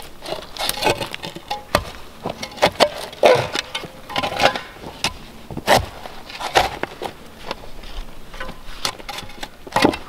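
A shovel digging into rooty forest soil: irregular chops and scrapes as the blade strikes the ground, several to the second at times.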